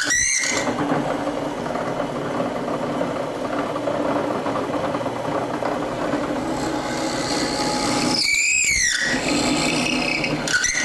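Drill press running, its bit boring peg holes into a thick ash workbench leg, with high squeals a moment in, about eight seconds in, and again near the end.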